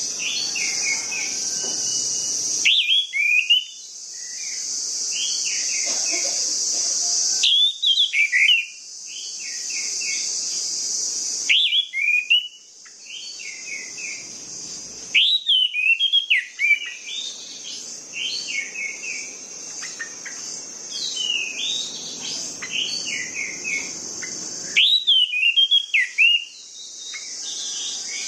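Orange-headed thrush singing: bursts of quick, varied chirped and whistled phrases every few seconds. Behind it runs a steady high insect buzz, like crickets, that drops out and comes back several times.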